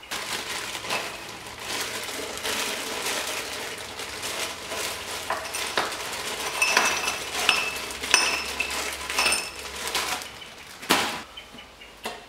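Plastic bag of ice rustling, then ice cubes clinking one after another into an empty drinking glass, with one sharp knock near the end.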